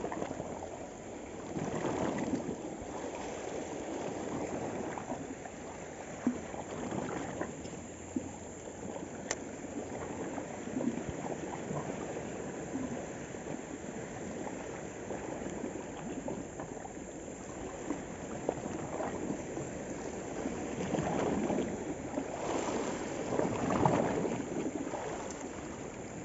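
Small sea waves washing and lapping against shoreline rocks, a steady rushing that swells louder a couple of times.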